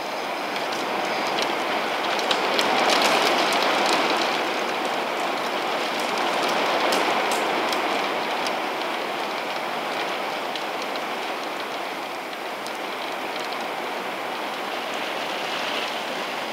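Rain falling steadily, a dense hiss of drops that swells a little a few seconds in, with single drops clicking close by during the first few seconds.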